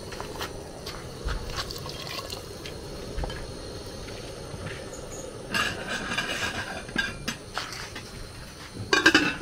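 Wooden spoon knocking and scraping against a plastic bowl as wet egusi paste is dropped into a pot of palm-oil soup, with soft liquid sounds. About nine seconds in, a short loud clatter.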